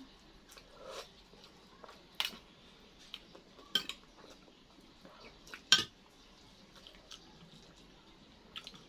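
Cutlery clinking against dishes while eating: a few sharp clinks, about two, four and six seconds in, the last the loudest, with fainter taps between.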